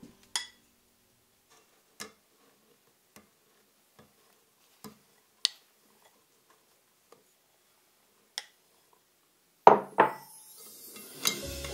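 Sparse light clinks and taps of a stainless fine-mesh sieve against a glass mixing bowl as powdered sugar is poured in and pushed through with a wooden spoon, with near silence between them. Two louder knocks come close together about ten seconds in.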